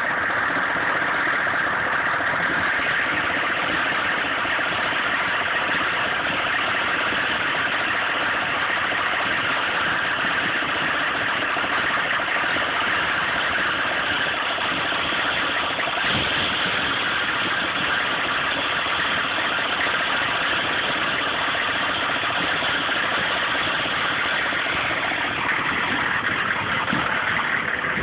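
GMC 6.5 L turbo-diesel V8 idling steadily, an idle the owner calls rough after misfires and stalling, which he suspects come from the pump-mounted driver (PMD) or the injection pump.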